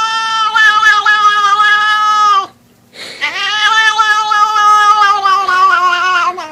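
A cat giving a weird meow: two long, drawn-out calls held at a nearly steady pitch, each about two and a half seconds, with a short pause between them.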